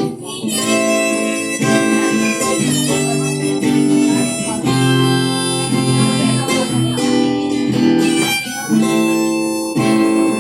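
Instrumental music: strummed acoustic guitar with a harmonica playing held notes over it.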